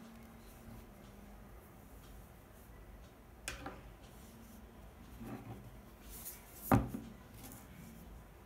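Quiet handling of a phone's retail packaging: a small click, some soft rustling, then one sharp knock about two-thirds of the way in, the loudest sound.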